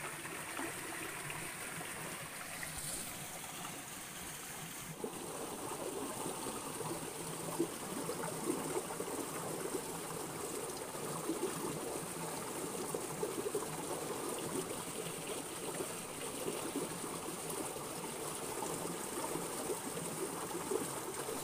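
A small, shallow stream flowing and trickling over its rocky bed in a steady rush of water that grows slightly fuller and louder about five seconds in.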